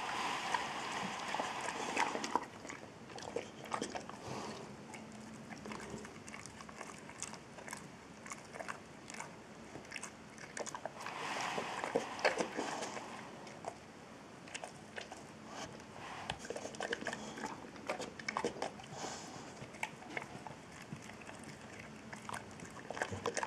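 Boxer dog gnawing and chewing a Purina DentaLife dental chew stick: irregular crunching and clicking bites, louder near the start and again about halfway through.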